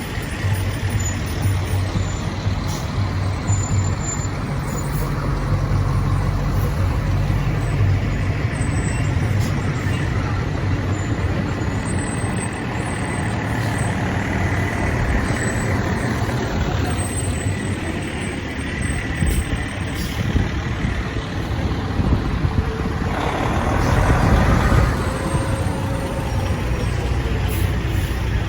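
Large truck engine running steadily, swelling louder for a couple of seconds about 23 seconds in.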